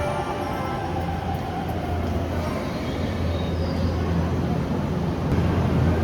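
Inside a JR East E231-series commuter train car running along the line: a steady low rumble of wheels and car body, with an electric motor whine that falls in pitch and fades in the first second or two.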